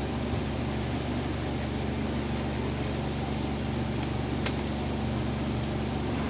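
Steady low hum and hiss of running background machinery, with a couple of faint light clicks.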